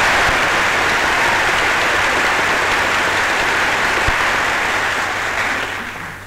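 Loud applause from the crowded chamber of a joint session of Congress, dying away near the end.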